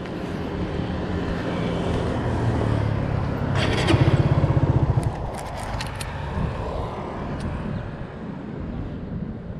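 Street traffic, mostly motorbike engines running past. One passes close and is loudest about four seconds in, then fades away.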